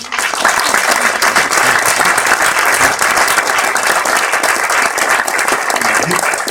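Audience applauding: many people clapping together, starting suddenly and holding steady.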